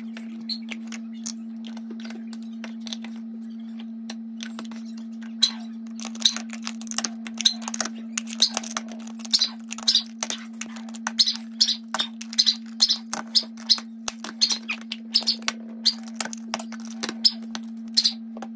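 Plastic snap-on lids pressed onto small plastic food containers, and the containers set down on a countertop: a run of sharp clicks and taps, several a second from about five seconds in, over a steady low hum.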